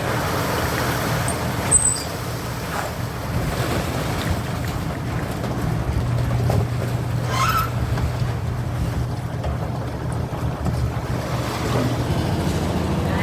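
A small engine running steadily at a constant speed, with a low, even hum.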